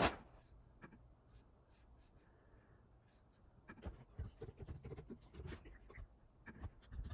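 Typing on a computer keyboard: one sharp key click at the start, a few scattered taps, then a quicker run of keystrokes over the second half.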